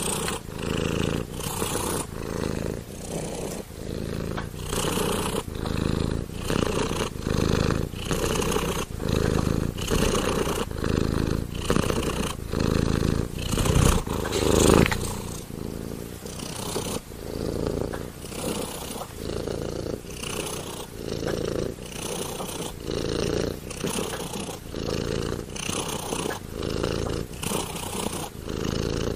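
Tabby cat purring, in even swells a little faster than one a second, with a louder swell about halfway through.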